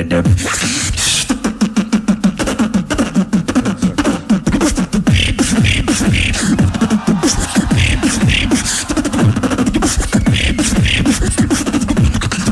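Beatboxing into a microphone: a fast, dense run of kick, snare and click sounds over a low, bending hummed bass line.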